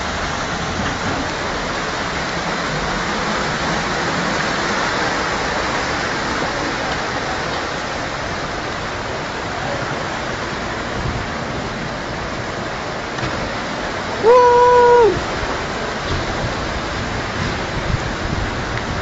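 Floodwater rushing steadily. About fourteen seconds in, a car horn honks once for under a second.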